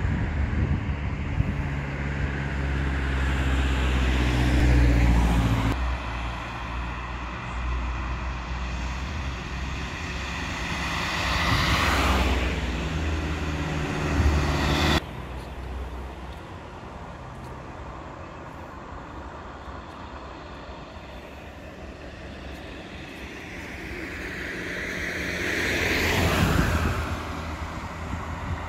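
Road traffic on a town street: cars and a small box truck pass one after another, each swelling up and dying away, with engine rumble and tyre noise. The loudest pass is a few seconds in, and the sound drops off suddenly about halfway through.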